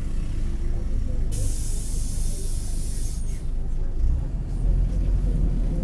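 Mercedes-Benz OF-1721 bus's diesel engine running with a low rumble. A burst of compressed air hisses from the bus's pneumatic system for about two seconds, starting just over a second in. The rumble grows louder near the end.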